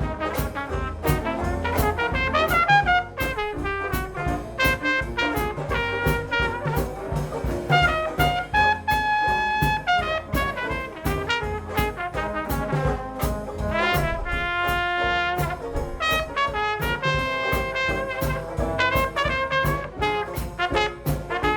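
Dixieland jazz band playing with a steady beat: trumpet lead over drums, piano and banjo. The trumpet holds long notes about nine seconds in and again around fifteen seconds.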